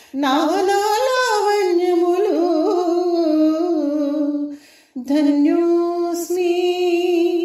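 A woman singing a Telugu devotional hymn to Shiva, one solo voice in two long melodic phrases with a short breath about four and a half seconds in.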